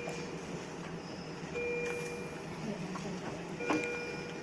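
Medical equipment alarm beeping in the ICU, a short multi-tone beep repeating about every two seconds over a steady low machine hum, with a sharp click near the end.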